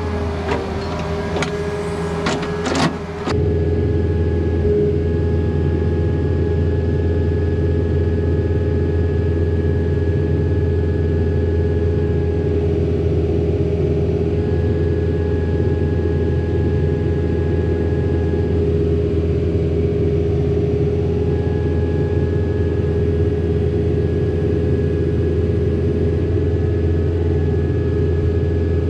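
Excavator's diesel engine running at a steady speed, heard from the operator's seat while the bucket is held still over the egg. A few knocks and clatter come in the first three seconds.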